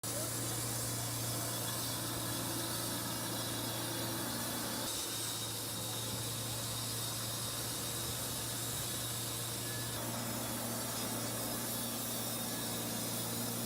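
A machine running steadily: a constant low hum under an even hiss, shifting slightly about 5 and 10 seconds in.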